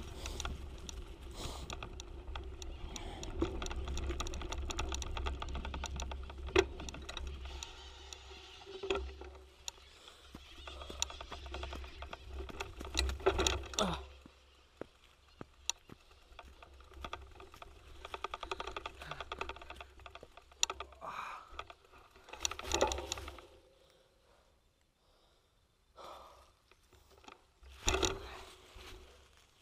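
Mountain bike riding over a dirt trail, heard through a handlebar-mounted GoPro: tyres on dirt and the chain and frame rattling and clicking over bumps, with a low rumble. The noise comes in uneven bursts and falls almost quiet twice.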